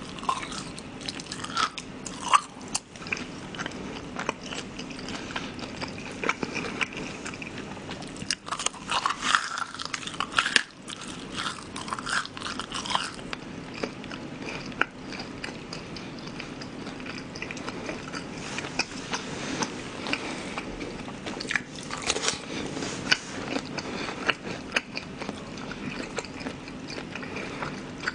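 Chewing and biting into fried shrimp in glutinous-rice batter with sweet-and-sour sauce, close to the microphone: a steady run of small wet crunches and mouth clicks, with a busier flurry of bites about eight to thirteen seconds in. The batter is somewhat soggy from damp weather, so the crunch is softer than crisp.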